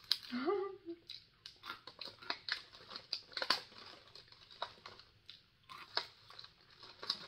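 A thin clear plastic snack tray crinkling and clicking irregularly as fingers pick through fried mini shrimp tempura in it. A short hummed voice sound just after the start.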